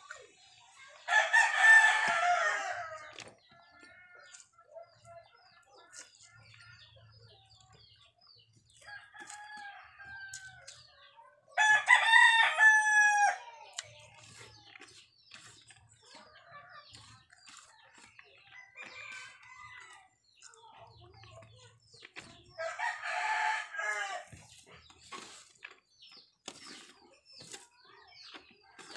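A rooster crowing three times, about ten seconds apart, each crow lasting under two seconds, with fainter calls in between.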